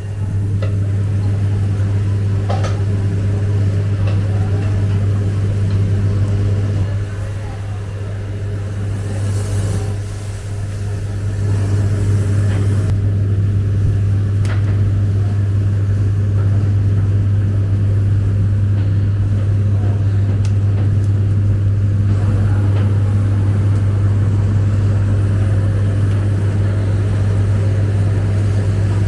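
Steady low mechanical hum of kitchen machinery at a commercial char-grill, easing off about seven seconds in and coming back louder about twelve seconds in, with a few light clicks of grilling utensils.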